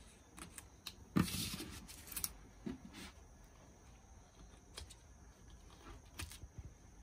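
Quiet hand-handling sounds of red double-sided tape being pressed down and unrolled along the edge of a ribbed sheet: scattered small clicks and taps, with a short rustle a little over a second in.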